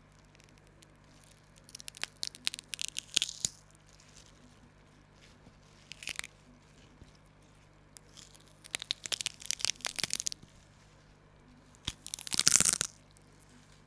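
Crunching, crinkling noises in four separate bursts, like material being crumpled or torn, the last near the end the loudest.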